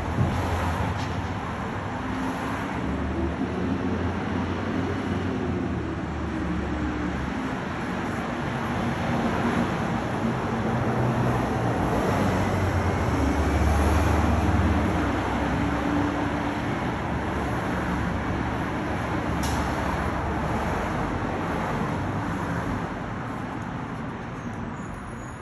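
Green-waste collection truck engine running, a low drone that rises and falls and is loudest about halfway through, over steady street traffic noise.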